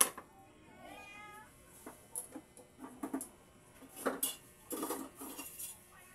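Metal cutlery clinking in a plastic utensil holder as a kitchen knife is pulled out, with sharp clicks, the loudest at the very start. A cat meows once about a second in.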